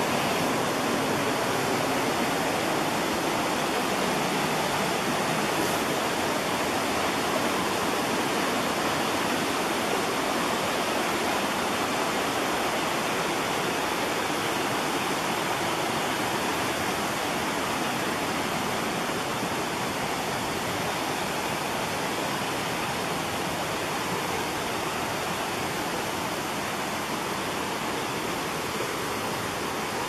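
Steady rushing of a fast-flowing forest creek with small waterfalls, easing off slightly toward the end.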